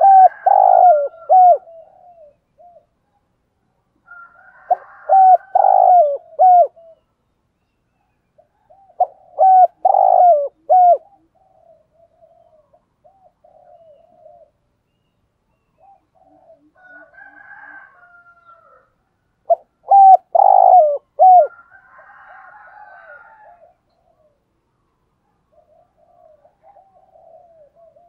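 Spotted dove cooing: four loud phrases of several rapid coos, each about two seconds long, at intervals of about four to five seconds, with a longer pause in the middle. Softer, quieter calling fills the gaps.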